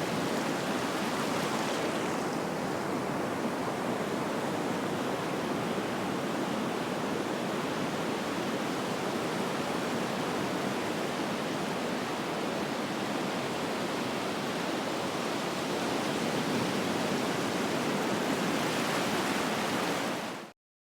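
Ocean waves washing onto a beach, recorded up close: a continuous churning wash of surf whose hiss eases a couple of seconds in and builds again as another wave comes in near the end. The sound cuts off abruptly just before the end.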